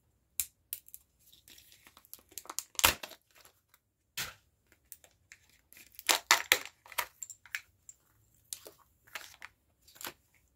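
Small plastic toy parts and their wrappers being handled: irregular clicks and crinkling rustles, with a sharp snap about three seconds in and a quick cluster of clicks a couple of seconds past the middle.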